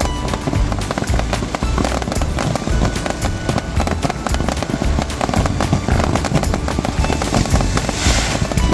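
Fireworks going off in quick succession, with deep booms and dense crackling bursts, as a display nears its finale. Music plays along with the display.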